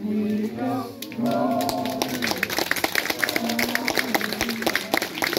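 A group of voices singing unaccompanied, holding their closing notes, while an audience starts clapping about a second and a half in. The applause thickens as the singing ends.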